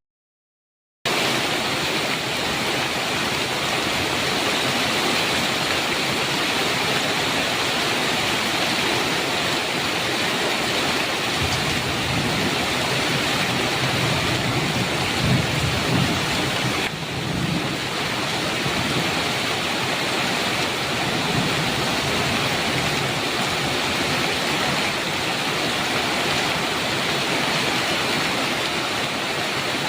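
Heavy rain falling steadily, a dense even hiss, with a low rumble of thunder swelling and fading around the middle. The sound drops out completely for about a second at the very start.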